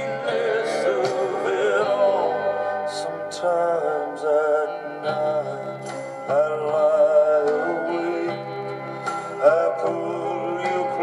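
A recorded ballad playing: a male voice singing with vibrato over instrumental backing.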